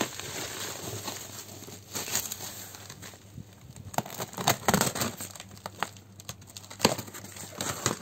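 Plastic bubble wrap crinkling and crackling as it is pulled off a cardboard box, in irregular bursts with a few louder rustles.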